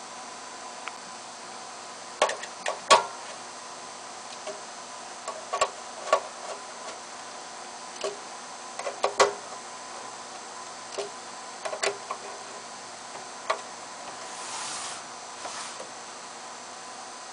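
Irregular clicks and light knocks of small metal parts and hand tools being handled while an ozone generator's case is put back together, loudest twice near the start and the middle, with a brief scrape near the end over a faint steady hum.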